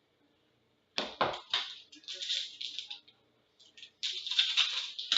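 Hockey card packaging being torn open and crinkled in irregular bursts. It starts sharply about a second in, pauses briefly near the middle, then resumes.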